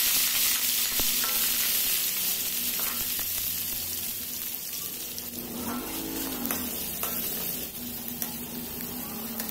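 Sliced chillies, shallots and herbs sizzling in hot oil in an aluminium wok as they are stir-fried: a loud hiss that starts suddenly and slowly dies down, with light scrapes and taps of a metal spoon.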